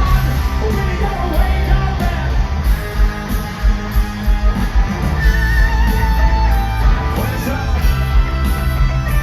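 Hard rock band playing loud and live: electric guitar over bass and drums, with a wavering lead guitar line coming in about halfway through.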